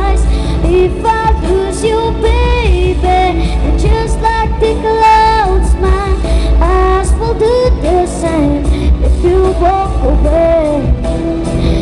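Pop song: a sung melody over a steady low bass accompaniment.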